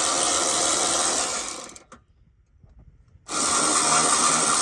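A handheld power tool fitted with a 13 mm socket running in two long bursts, backing out a bolt: it stops a little under two seconds in and starts again about a second and a half later.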